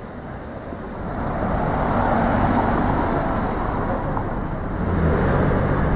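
Street traffic noise from passing vehicles, growing louder about a second in, with a vehicle's low engine hum coming up near the end.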